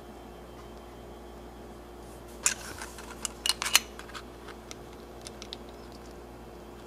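Lego minifigure parts being handled and pressed together onto a plastic base plate: a cluster of sharp plastic clicks about two and a half to four seconds in, followed by a few lighter ticks.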